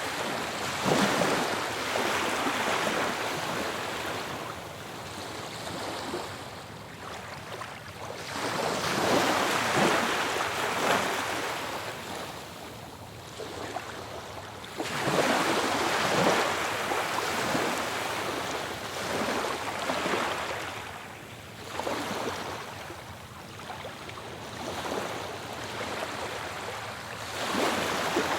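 Ocean surf: waves breaking and washing ashore in a continuous rush, with a fresh wave crashing every several seconds, about five times.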